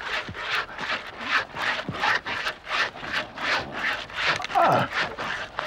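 Rhythmic hand sawing through wood, about three rasping strokes a second. A short falling tone cuts in about five seconds in.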